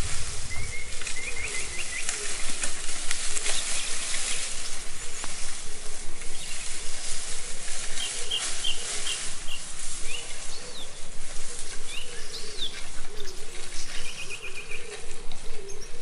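Bundle of dead branches dragged over the forest floor, rustling and crackling throughout, with birds chirping in short runs of quick repeated notes near the start, in the middle and near the end.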